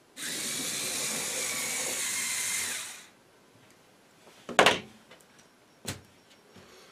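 LEGO EV3 tank robot's motors and tracks running for about three seconds with a steady whir, then stopping. Two sharp knocks follow, about a second and a half apart.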